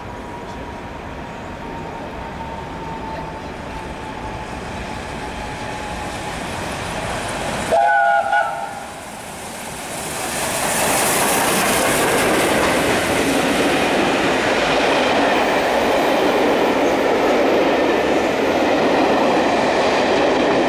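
Steam locomotive 60163 Tornado sounds a short whistle blast about eight seconds in, then it and its train pass close by, with a loud rushing clatter of wheels over the rail joints. Before the whistle a faint steady tone slowly drops in pitch.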